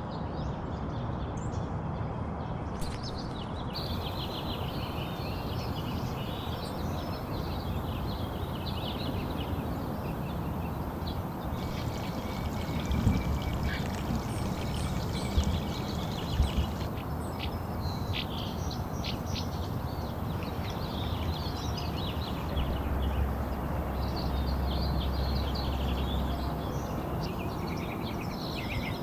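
Birds calling at dawn: ducks quacking and small birds chirping again and again over a steady rushing background. A few low thumps come near the middle, and a small airplane's low drone passes overhead later on.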